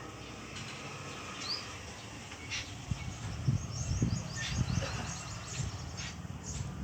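Pet parrot giving a run of short, high chirps in the second half, over soft low thumps.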